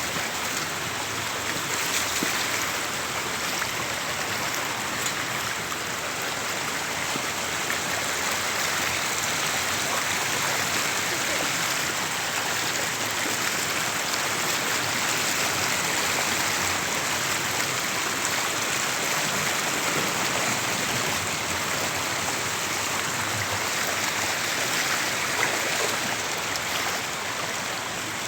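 Floodwater rushing steadily, a constant even roar of flowing water.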